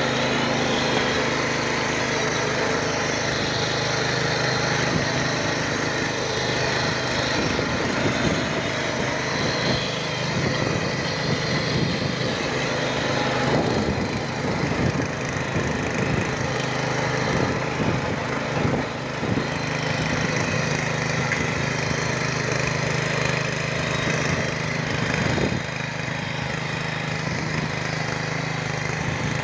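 Walk-behind rotary tiller's small engine running steadily under load, with the tines chopping through soil in an irregular crackle.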